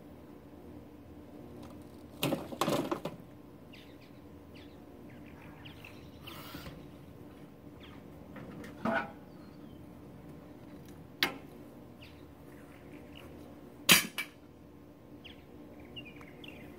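A few scattered knocks and clunks from handling a riding lawn mower in a pickup truck bed, a short cluster about two seconds in and single knocks later, the loudest about fourteen seconds in, over a low steady background.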